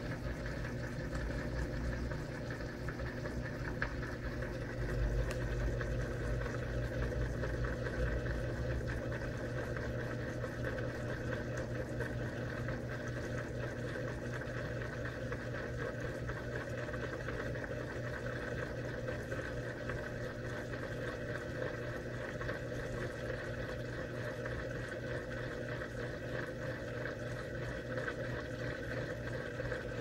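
Electrolux LM13Q top-load washing machine spinning its tub at speed, with a steady motor hum and the whirr of the spinning basket, a little louder a few seconds in. This is the spin stage that wrings water out of the load before the rinse.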